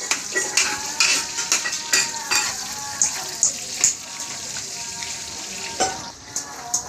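Food sizzling in hot oil in a large steel wok over a wood fire, with a metal ladle scraping and clinking against the pan as it is stirred.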